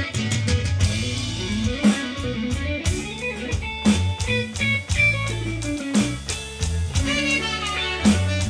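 Rock music: electric guitar over a bass line, with a drum kit keeping a steady beat of sharp hits, played through a live sound setup.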